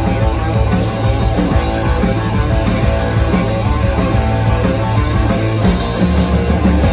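Rock band playing live without vocals: electric guitar, bass and drums in a loud, dense passage with a steady beat.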